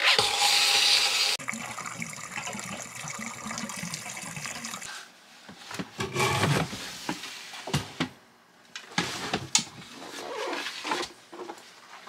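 Water rushing out of a 50-gallon electric water heater's drain valve into a garden hose as the tank is drained: a loud rush for the first second or so, then a quieter steady flow. After that come a few knocks and clunks.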